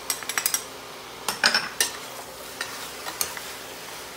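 Metal spoon clinking and scraping against a stainless steel pan as raw chicken pieces are stirred, over a faint steady sizzle of the chicken frying. A quick run of clicks opens it and another cluster comes about a second and a half in, then only a few.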